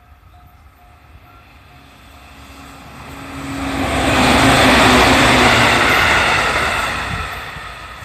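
JR Central 311 series electric train passing at speed over a level crossing: a rumble and wheel-on-rail noise that builds, is loudest about halfway through, and fades near the end. The crossing's warning bell rings in steady pulses at the start, then is drowned out by the train.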